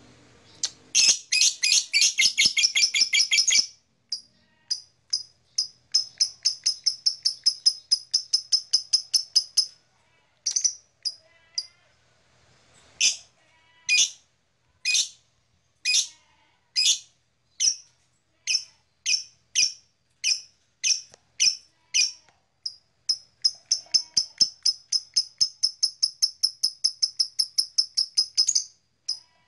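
Blue black-masked lovebird giving its long, rapid chattering call, the 'ngekek', as runs of high chirps. In the middle the chirps slow to about one a second, then speed up again into a long fast run near the end.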